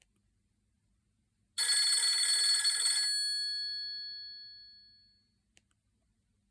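Nokia 6136 mobile phone playing a preloaded ringtone through its speaker: one burst of an old-style telephone bell ring, starting about a second and a half in and lasting about a second and a half, then fading away over the next two seconds.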